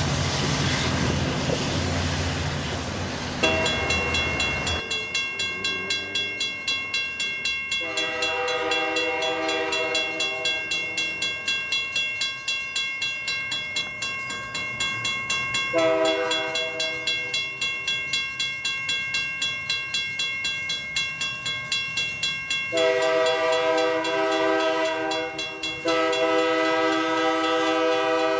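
Railroad grade-crossing bell ringing evenly, about two strokes a second, starting a few seconds in. Over it an approaching locomotive's air horn sounds the grade-crossing signal: two long blasts, a short one, then a long one.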